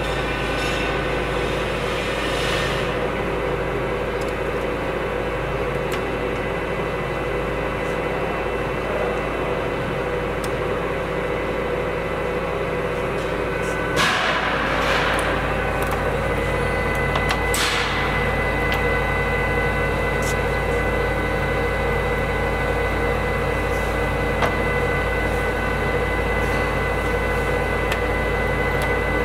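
Birmingham 16 x 40 gap-bed engine lathe running with its chuck turning at 85 RPM, a steady hum and whine from the geared headstock. About halfway through there is a short clatter as a headstock lever is shifted, another a few seconds later, and the running tone changes slightly after them.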